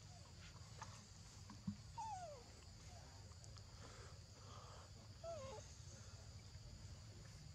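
Faint forest ambience: a steady high-pitched drone, with two short falling animal calls, one about two seconds in and one about five seconds in.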